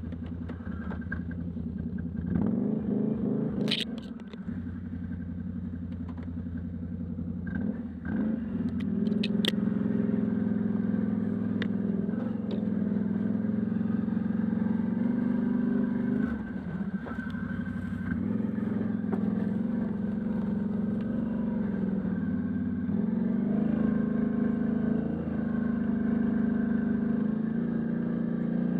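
Can-Am Outlander ATV engine running while riding on a dirt trail, its pitch rising about two seconds in and again about eight seconds in, then holding steadier. A few sharp clatters cut through near four seconds and around nine to ten seconds.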